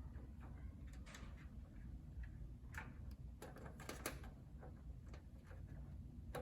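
Irregular light clicks and taps of PC parts and screws being handled and fitted into a computer case, with a quick run of clicks in the middle and one sharp click near the end, over a faint low hum.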